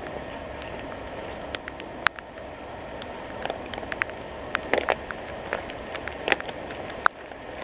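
Footsteps through downed branches and brush: irregular sharp snaps and crackles of twigs and pine boughs, heard over a steady hiss.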